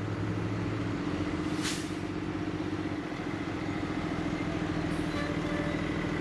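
Engine of a fire department rescue truck running as it rolls slowly toward and past, with other fire trucks following; a steady low drone. A short hiss comes about one and a half seconds in, and a fainter one near the end.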